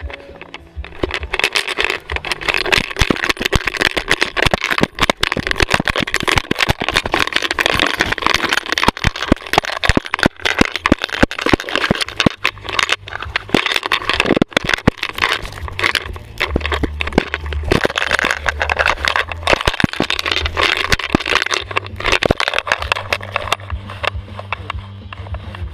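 Dog-worn GoPro camera knocking and rattling as the dog runs through leaf litter: a fast, irregular clatter of knocks and rustles, with a low rumble joining in the later part.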